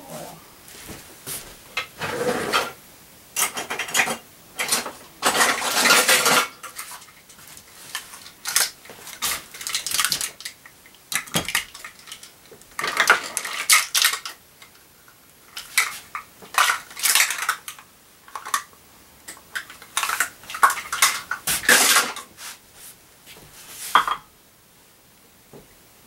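Plastic measuring cup, oil bottles and containers being handled on a countertop and kitchen scale: irregular knocks, clatters and scraping, with longer scrapes or rustles every several seconds.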